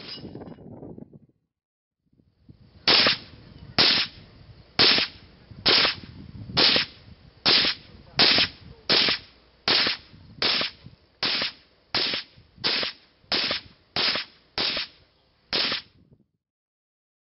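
TST Paratus .308 (7.62x51mm) direct-gas-operated semi-automatic AR rifle being fired: one shot, a pause of about two seconds, then a steady string of about seventeen shots a little under a second apart.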